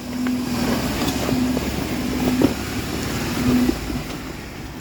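Four-door Jeep Wrangler's engine running under load as it crawls up a rocky hill, with a held tone that comes and goes. Wind buffets the microphone.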